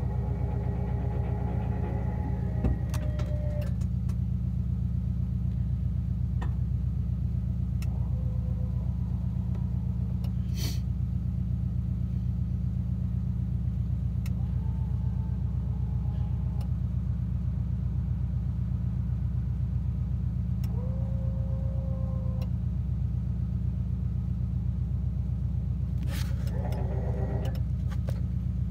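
Steady low mechanical drone from the motorhome while its Lippert auto-leveling system grounds the rear jacks, with a few faint clicks on top.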